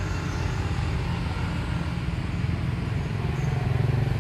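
Steady low rumble of a running motor vehicle engine, with a fast, even pulse.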